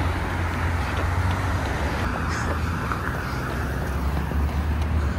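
Road traffic on a busy multi-lane road: a steady, noisy rumble without distinct single vehicle passes.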